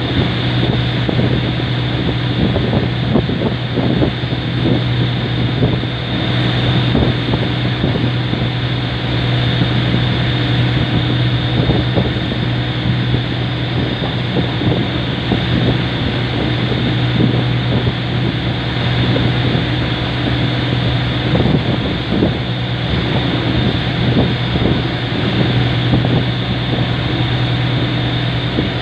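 Boat engine running at a steady drone, with wind buffeting the microphone.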